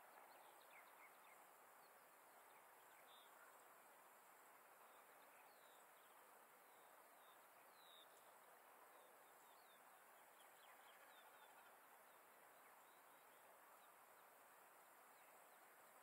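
Near silence: faint steady outdoor background hiss with scattered faint chirps of small birds.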